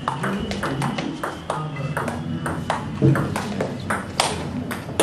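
Table tennis ball clicking off the bats and the table in a fast rally, a sharp tick about three times a second, with voices murmuring underneath.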